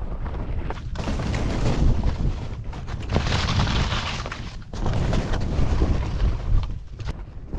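Wind buffeting the camera microphone as telemark skis carve turns on snow, the scraping hiss of the edges coming in three surges, one per turn.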